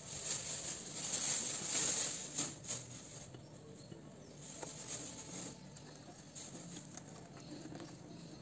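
Fingers squeezing and mashing wet tamarind pulp in a little water against the bottom of a stainless steel pot: soft, irregular squishing and scraping, busiest in the first three seconds.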